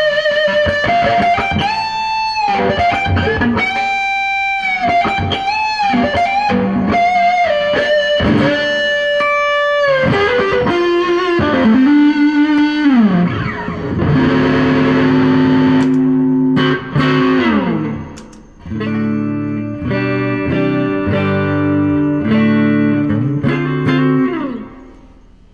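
Electric guitar through a fuzz pedal, playing a single-note lead line with string bends and vibrato, then strummed sustained chords from about halfway, ringing out and fading near the end.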